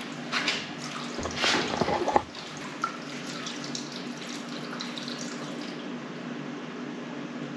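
A few knocks as the brass sampling tap is handled, then water running steadily from the tap from about two seconds in.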